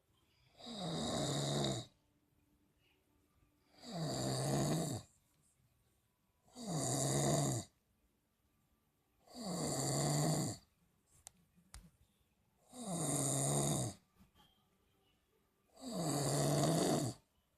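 Loud, rhythmic snoring: six snores about three seconds apart, each lasting a little over a second, with a pitch that drops at the start of each snore.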